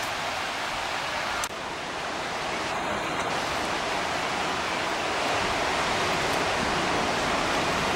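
Steady rush of ocean surf, an even hiss with a brief dropout about one and a half seconds in.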